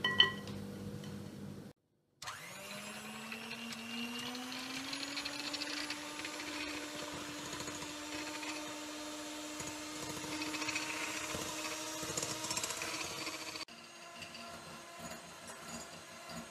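Electric mixer whipping egg whites with a pinch of salt toward stiff peaks: the motor starts about two seconds in, its pitch climbing as it comes up to speed, runs steadily, then stops suddenly a few seconds before the end.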